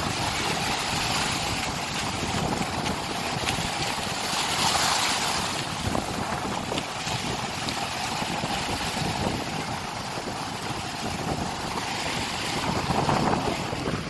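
Rough sea surf breaking and washing up a sandy beach, with wind buffeting the microphone. The wash swells louder about five seconds in and again near the end as bigger waves break.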